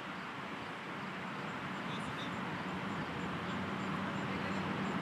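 Steady outdoor background noise with a faint low hum, and a faint high chirp repeating about three times a second.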